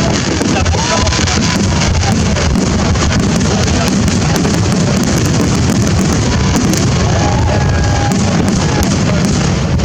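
Dense fireworks barrage: continuous crackling and rapid bangs with a deep rumble of booms and a few faint whistles.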